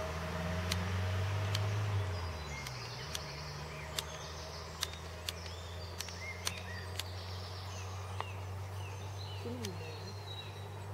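Birds chirping in short falling calls, with scattered sharp clicks, over a steady low hum that dips in pitch about two to three seconds in.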